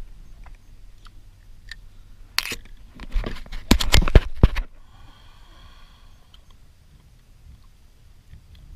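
A freshly landed fish flopping and slapping on a plastic kayak deck: a burst of loud knocks and clatter about two and a half seconds in, lasting about two seconds.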